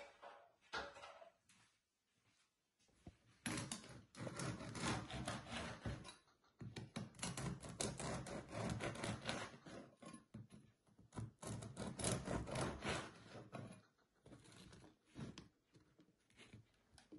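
Knife sawing through a crusty loaf of bread on a wooden cutting board: a dense crackle of breaking crust in three runs of a few seconds each, then fainter handling of the cut pieces near the end.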